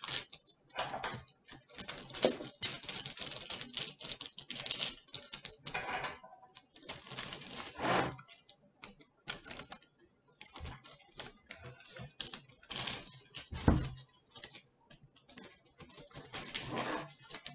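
Wooden clothes pegs being clipped onto wax-paper-wrapped book pages: irregular clicks and paper rustles as the pages and paper are handled, with one heavier thump about three-quarters of the way through.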